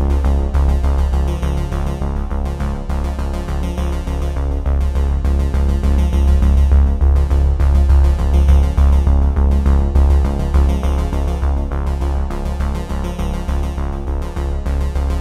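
Background electronic music with a steady beat and a sustained deep bass.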